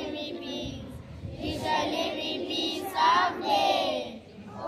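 A group of young schoolchildren singing together, with a short pause between phrases about four seconds in.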